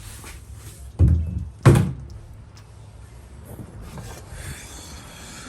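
Two dull, heavy thumps about two-thirds of a second apart.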